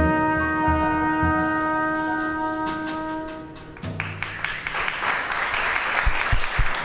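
Jazz trumpet holding a long final note over the keyboard and drums, which fades out about three and a half seconds in. An audience then breaks into applause, with a few low thumps near the end.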